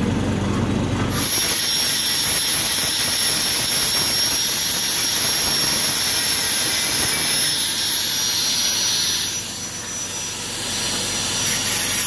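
Handheld angle grinder cutting into the steel knife sections of a rice harvester's cutter bar, a steady high-pitched whine with a hiss that comes in about a second in. It gets quieter about nine seconds in and keeps running.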